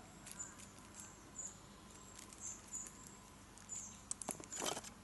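Faint insects chirping, short high chirps repeating at irregular intervals, with a few small clicks and rustles about four and a half seconds in.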